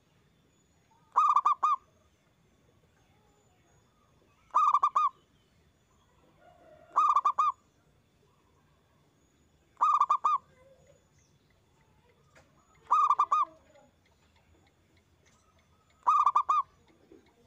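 Zebra dove (perkutut) singing its cooing song: six short phrases about three seconds apart, each a quick rolling run of several clear notes.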